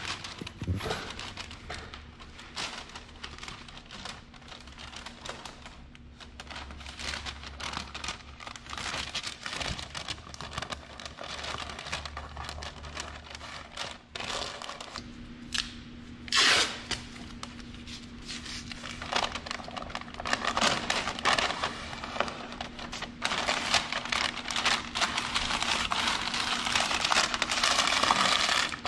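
Masking paper crinkling and rustling as it is handled and pressed onto tape, with one sharper, louder crackle about halfway through; the crinkling grows busier and louder in the last few seconds.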